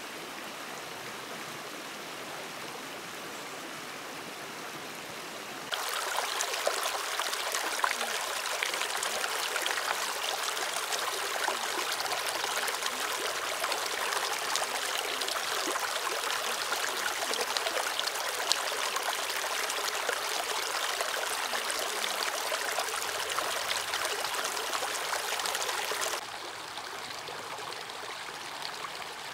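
Mountain stream running over rocks: a steady rush of water that becomes louder and more splashy about six seconds in, with shallow water rippling over stones close to the microphone. It drops back to a softer rush a few seconds before the end.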